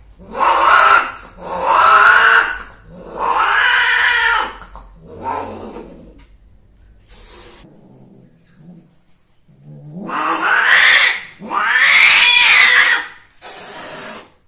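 Female cat yowling during mating: long, loud, wavering cries, four in quick succession, then two more after a pause of a few seconds. The typical copulatory yowl of a queen, ending in a short hiss as she turns on the male.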